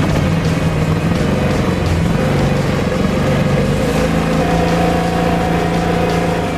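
Tsuzumi TIG8500iSE inverter generator's 327 cc four-stroke OHV engine running steadily just after starting, with background music underneath.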